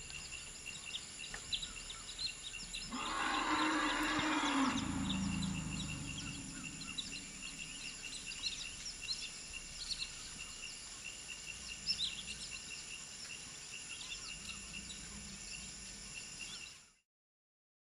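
African forest elephant giving one loud call about three seconds in: a harsh noisy onset over a low tone that falls in pitch and fades over roughly three seconds. Behind it, insects and birds chirp and tick steadily.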